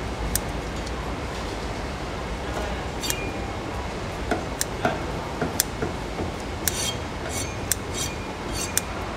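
Kitchen scissors snipping through the shell of a raw mantis shrimp: a string of short, sharp, irregular snips and clicks, closer together in the second half, over a steady background hum.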